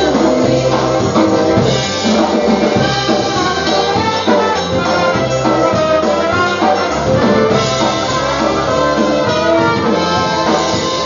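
Live polka band playing an instrumental passage led by brass horns, with accordion, over a steady bass beat.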